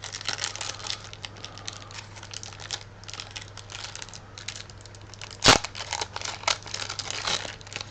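Foil booster pack wrapper crinkling and tearing open in the hands, a dense irregular crackle, with one sharp loud snap about five and a half seconds in.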